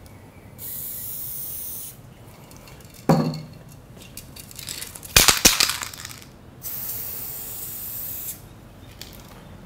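A Montana aerosol spray-paint can hisses in two bursts of about one and a half seconds each: first through the Level 3 cap, then, near the end, through the wider Level 4 cap. Between the bursts, the can and its cap being handled make a loud rattle of clattering clicks.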